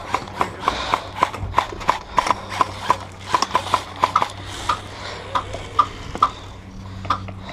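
Footsteps with the knock and rattle of carried gear, a quick uneven run of short knocks, about two to three a second, over a low steady hum.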